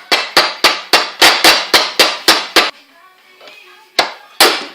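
Hammer striking metal: a quick run of about a dozen ringing blows, roughly four a second, then a pause and two more blows near the end.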